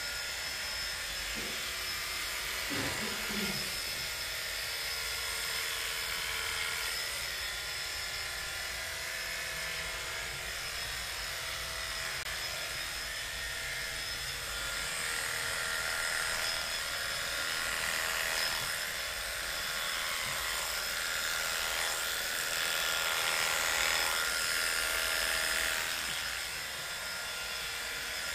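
Electric pet hair clippers running with a steady high hum while shearing a cat's coat. The sound gets louder for a few seconds about three-quarters of the way through.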